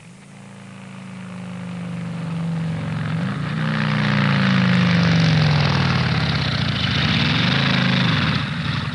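Motor vehicle engine running and growing steadily louder over the first five seconds, then holding. Its pitch rises and falls a few times.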